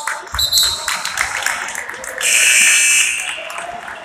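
Gymnasium scoreboard horn sounding once, a steady buzz lasting about a second, starting a little past two seconds in, over crowd voices and court noise.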